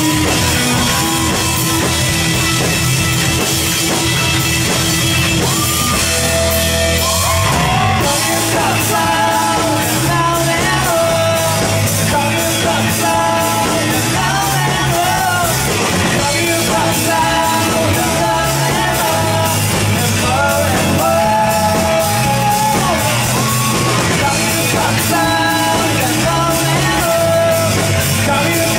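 Live rock band playing with sung vocals over a full drum kit. The drumming gets busier, with dense cymbal hits, about eight seconds in.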